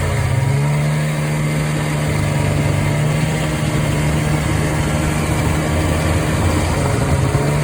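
Arctic Cat Puma snowmobile's fan-cooled two-stroke engine running at a steady pitch while the sled rides along the trail, with a rushing noise of wind and track underneath.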